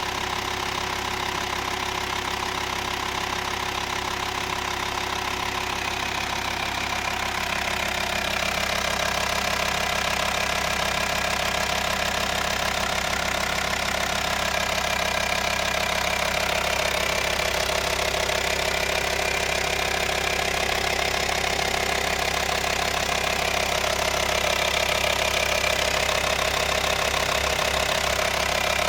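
Volkswagen T5 Transporter 2.5 TDI (BPC) inline five-cylinder diesel engine running steadily. Its note changes and it gets slightly louder about eight seconds in. The owner presents the engine noise as a problem.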